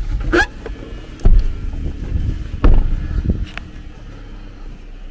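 Heavy thumps and knocks of someone getting out of a car, ending in the car door being shut, then a faint steady background.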